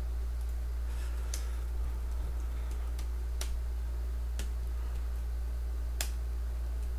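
A few sharp computer keyboard key clicks, a second or so apart, as a line of code is typed, over a steady low electrical hum.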